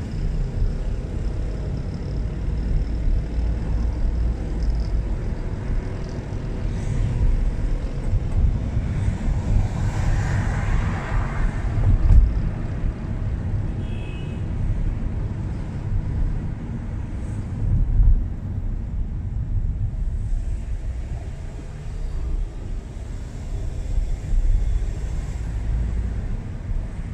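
Car driving through city traffic: a steady low rumble of road, tyre and wind noise, swelling briefly about ten seconds in.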